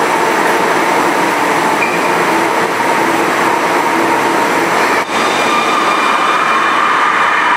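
A Panama Metro electric train in an underground station: a steady dense hum and hiss of the standing train and the platform. About five seconds in the sound changes abruptly to a train moving alongside the platform, with a steady high whine from its electric traction equipment above the rumble.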